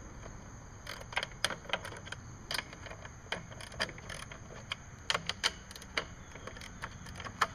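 Irregular sharp metallic clicks and taps from a small hand wrench working loose the 10 mm nuts on a lawn mower engine's recoil starter housing, a few clicks a second in uneven bursts.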